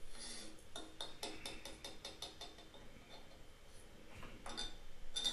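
Faint, quick series of light clicks and knocks of small hard objects, about four or five a second, then a few louder clicks near the end.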